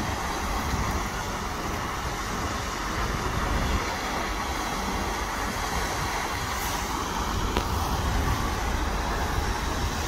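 Steady rushing splash of a fountain jet falling back into a pond, over a low rumble of wind on the microphone.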